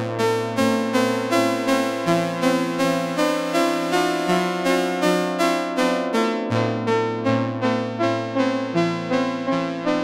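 Dreadbox Nymphes analog polysynth playing an electric-piano-like patch: a steady stream of short, decaying notes about three a second over sustained low notes that change every couple of seconds.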